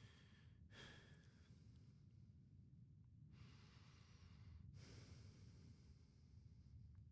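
Near silence: a man's slow, faint breathing, three breaths picked up by a headset microphone, over a low steady room hum.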